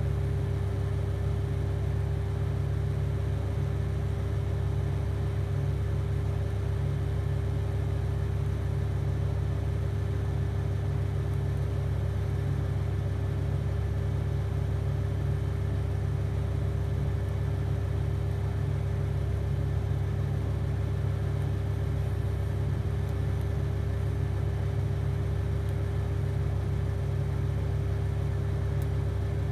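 TIG welding arc running with a steady low buzz, the amperage pedal held flat to the floor.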